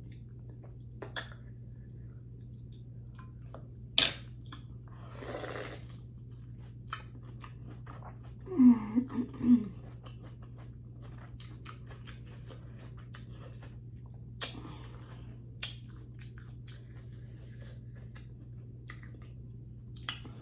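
Close-miked eating sounds of a person chewing food: wet mouth clicks and smacks scattered throughout, with a sharper click about four seconds in and a brief voiced murmur of enjoyment near the middle.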